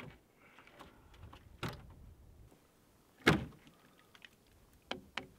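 A few sharp knocks and thumps, spaced out, with the loudest a little past three seconds in and two quick ones near the end.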